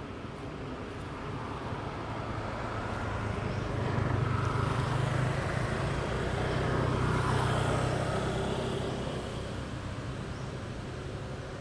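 A motor vehicle passing, its engine and road noise swelling over a few seconds and then fading away.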